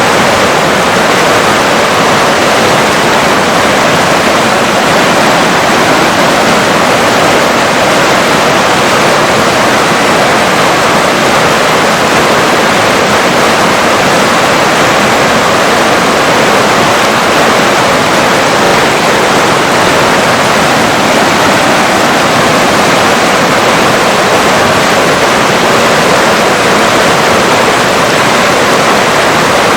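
Steady rushing of flowing river water, an even loud wash with no change.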